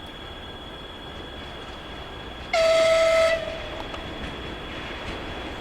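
VL10 electric locomotive's horn sounding one short blast of under a second at a single steady pitch, about two and a half seconds in. Under it runs the steady noise of a train on the move with a faint high whine.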